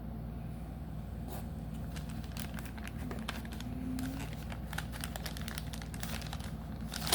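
Trading-card pack wrappers and cards crinkling and clicking as they are handled, in irregular bursts from about a second in, over a steady low hum.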